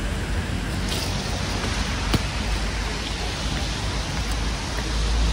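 Steady hiss of rain, with a single sharp knock about two seconds in.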